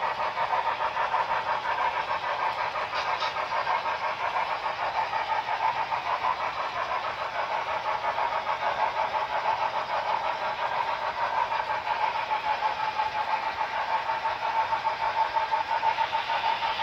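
HO scale model freight train running past: a steady, fast metallic rolling clatter of the wheels on the track with a steady hum.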